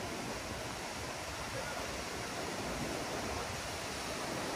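Fast mountain river running over boulders: a steady, even rush of white water.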